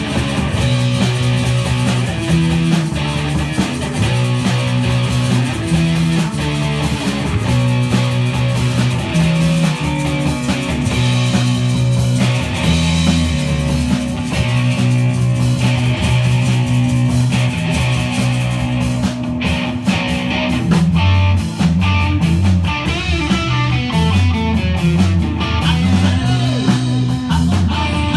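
Live band playing: electric guitar over a moving bass line and a drum kit with cymbals.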